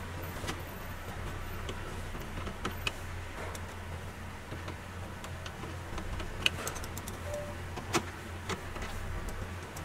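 Scattered small clicks and taps of a screwdriver working screws into a car's plastic centre-console trim, a few sharper clicks in the second half, over a steady low hum.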